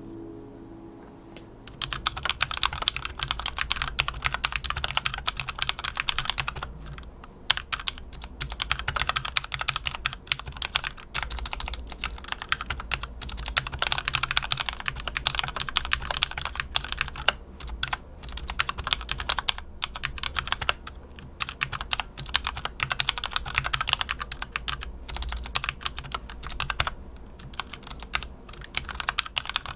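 Typing on a HyperX Alloy FPS Pro mechanical keyboard fitted with spray-lubed Cherry MX Red linear switches: a fast, continuous clatter of keystrokes that starts about two seconds in, with a couple of short pauses.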